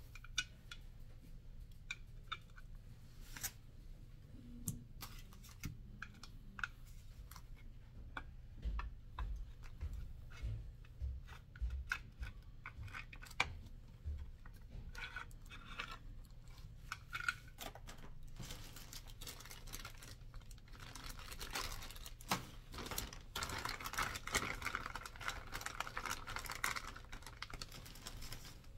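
Handling noise from Trek Madone Gen 6 seatpost and clamp parts being picked up, turned and set down on a paper-covered table: scattered light clicks and taps, a run of dull knocks around the middle, and a rustle near the end.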